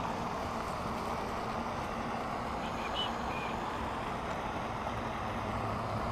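Steady outdoor background noise, with a few faint, short, high chirps about three seconds in.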